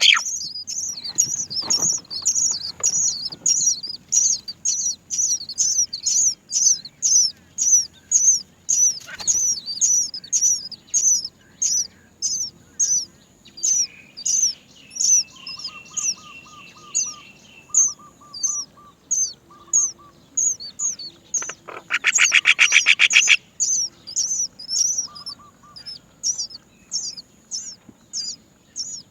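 Great myna nestlings giving high, short begging chirps over and over, two or three a second, the calls of hungry chicks waiting to be fed. About two-thirds of the way through, a louder buzzy burst lasts about a second, with fainter lower bird notes in the background.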